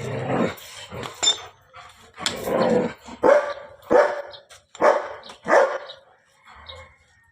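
A dog barking repeatedly, a string of barks about a second apart that dies away near the end.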